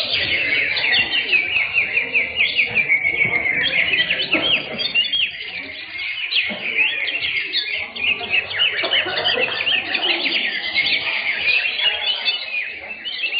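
Several greater green leafbirds (cucak hijau) singing at once, a dense stream of rapid overlapping chirps and trills, over a low murmur.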